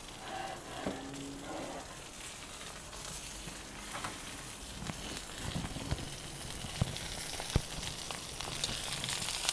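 Steak sizzling in a hot cast iron pan just out of the oven, with a few sharp knocks about midway. The sizzle grows a little louder near the end.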